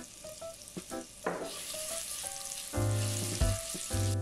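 Minced garlic sizzling in melted butter in a nonstick saucepan while a silicone spatula stirs it; the sizzle grows louder about a second and a half in. Background music notes sound over it near the end.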